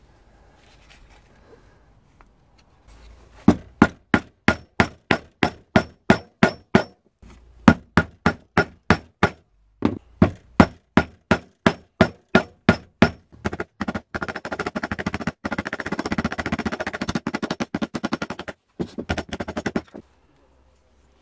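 Hammer blows driving wooden dowel pins through a machete's handle scales and tang: sharp, even strikes about three a second with a couple of short breaks, then a much faster run of blows near the end that stops suddenly.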